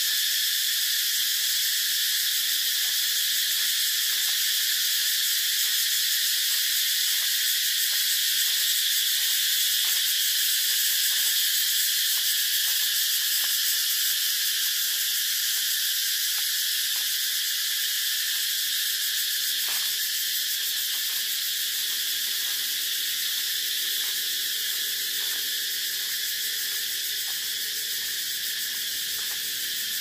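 Cicadas singing in chorus: a dense, steady high-pitched buzz that eases off slightly near the end.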